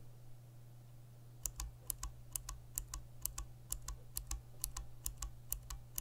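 Aristotle clicky mechanical keyboard switch pressed and released repeatedly. From about a second and a half in it gives sharp clicks in close pairs, roughly two pairs a second.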